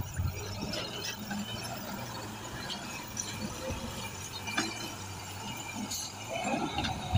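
Heavily loaded truck moving slowly over a rough road: a low, steady engine hum under scattered squeaks, creaks and clanks from the straining body and suspension, with a louder squeal and groan near the end.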